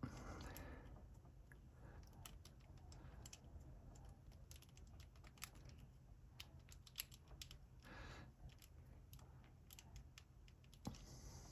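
Faint, irregular small clicks of a Master Lock 875D combination padlock's number wheels being turned through their detents while the combination is being decoded.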